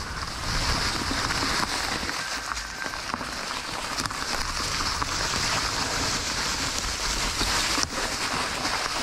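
E-mountain-bike tyres rolling through a thick layer of dry fallen leaves: a steady rustling crackle, with wind rumble on the microphone underneath.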